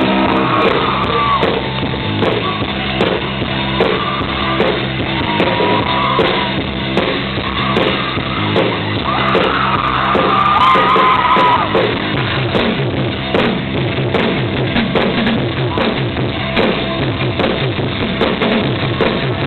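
Live rock band playing loud, the drum kit hitting steadily under sustained low notes, with a wavering high melody coming in a few times. The recording is dull, with the treble cut off.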